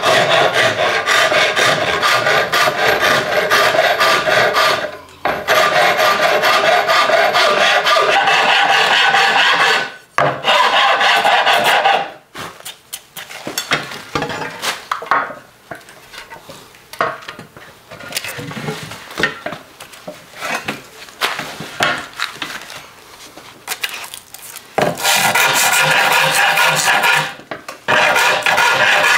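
A hand rasp filing down a hackberry bow limb in repeated strokes. The filing breaks off briefly about five and ten seconds in, turns quieter and patchier through the middle stretch, and comes back loud near the end.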